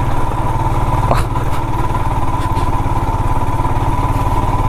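Royal Enfield Himalayan motorcycle engine running steadily under way, with a couple of short sharp knocks about a second in and near halfway.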